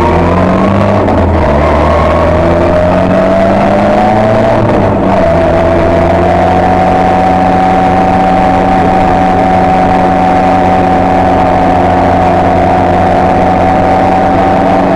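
Ford rally car engine heard from inside the cabin, climbing in pitch for about five seconds, breaking off briefly, then holding a steady, even note.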